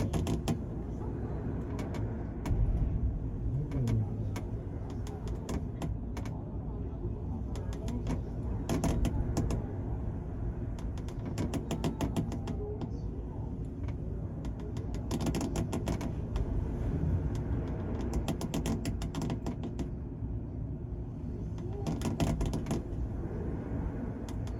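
The car ferry Kiso under way: a steady low rumble of the ship and the sea, broken every few seconds by spells of rapid ticking and creaking from the vessel's fittings.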